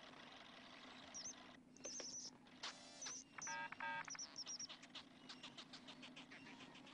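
Faint cartoon mouse squeaks: short high chirps that repeat several times. A brief burst of rapid electronic bleeping comes a little past the middle, and a run of quick ticks follows near the end, all over a steady low hum.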